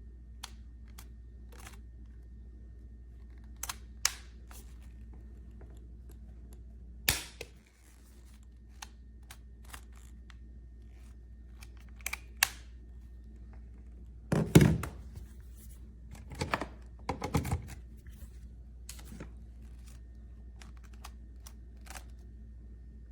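Irregular clicks, taps and knocks of objects being handled, loudest in a cluster about two thirds of the way through, over a steady low hum.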